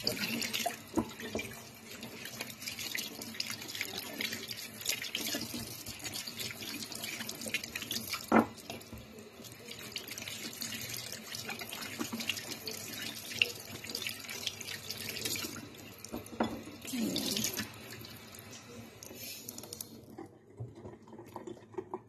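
Kitchen tap running into a sink while tomatoes are rinsed by hand under the stream, with a few sharp knocks, the loudest about eight seconds in. The water stops near the end.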